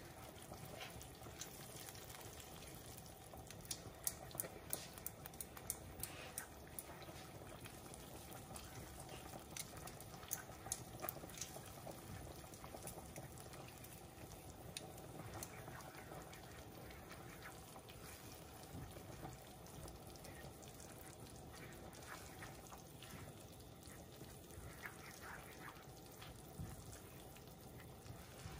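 A spoon stirring a thick peanut butter dipping sauce in a bowl as water is mixed in. It goes quietly, with scattered light clicks of the spoon against the bowl, over a faint steady hum.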